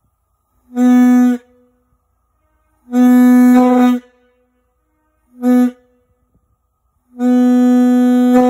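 Steam locomotive whistle blown on compressed air, sounding four blasts of a single steady note: short, long, very short, then long. Blown on air rather than steam, it has a thinner, reedier tone.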